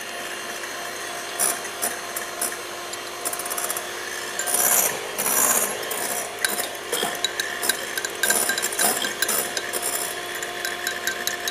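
Electric hand mixer running at speed, its beaters whipping a meringue mixture in a bowl, with a steady motor whine and frequent clicking and rattling that grows louder in stretches around the middle.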